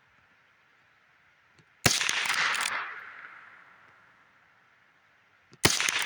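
Two .22 LR rifle shots from a Winchester 9422 lever-action firing CCI Mini-Mag hollow points, about four seconds apart. Each is a sharp crack followed by about a second of echo dying away.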